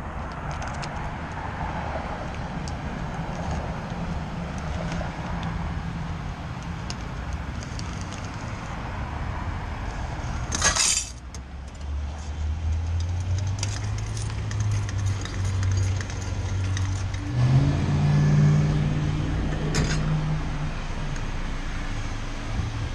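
Coin-operated bill changer paying out quarters: a short, loud clatter of coins dropping into its metal tray about eleven seconds in. Under it runs a steady low hum of machinery, which grows stronger and deeper in the second half.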